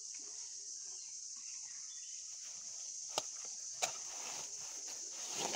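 Steady high drone of insects, with two sharp snaps a little over three seconds in, about two-thirds of a second apart, as a cow bites at a fallen palm frond's sheath.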